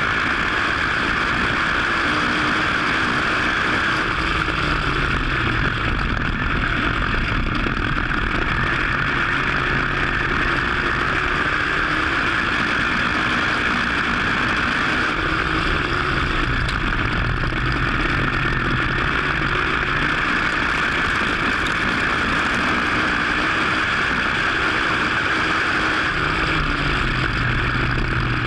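WISSOTA modified dirt-track race car's V8 engine heard from on board under racing load, its pitch climbing and falling every several seconds as the driver gets on and off the throttle around the laps, over a steady loud rushing noise.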